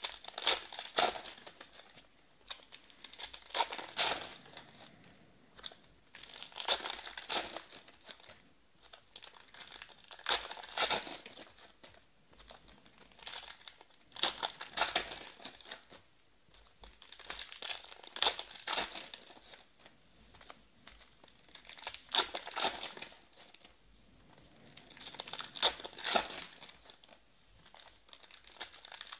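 Foil trading-card packs being torn open one after another, the wrappers crinkling in short spells about every four seconds.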